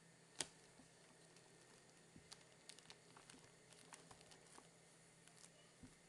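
Faint scuffling and light tapping of two kittens play-fighting: one sharper tap about half a second in, then a run of quick light taps in the middle.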